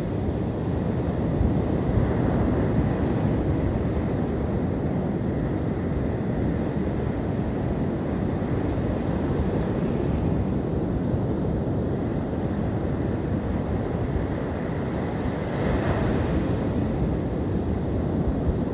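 Sea surf washing onto a sandy beach, with wind buffeting the microphone in a steady low rumble. The wash swells a little louder twice, once early and once near the end.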